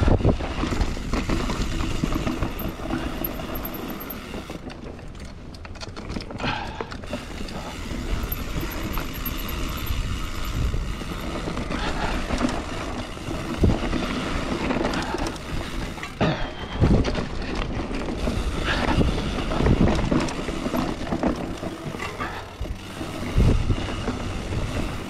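Mountain bike riding down a trail: a steady rush of tyre and air noise, broken by frequent knocks and rattles as the bike hits bumps.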